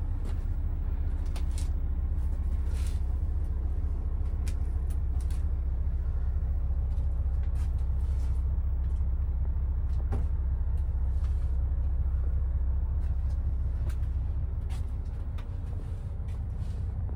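Mitsubishi Aero Midi bus's 6D15 turbo-diesel straight-six idling, a steady low rumble heard from inside the passenger cabin. A few light clicks sound over it.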